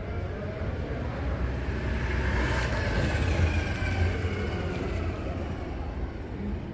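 A road vehicle passing on the street, its noise swelling to its loudest about three seconds in and then fading, over a steady low rumble.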